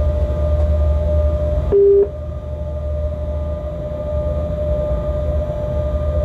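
Locomotive running along the line, heard from the cab as a steady low rumble with a steady whine above it. About two seconds in, a short, loud beep sounds once.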